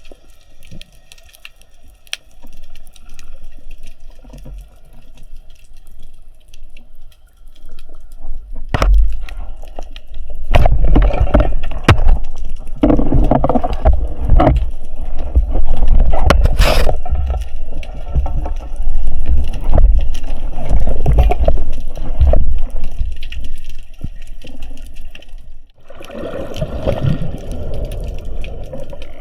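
Water sloshing and gurgling against an action camera during a spearfishing dive, with scattered sharp clicks. It is fainter for the first several seconds, turns loud and churning from about nine seconds in, drops away briefly near the end, then picks up again.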